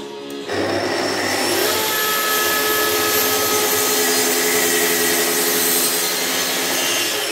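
A plunge-cut track saw running on its guide rail, cutting across the top of a laminated wooden blank. It starts about half a second in with a rising whine that settles into a steady loud run through the wood, then winds down at the very end.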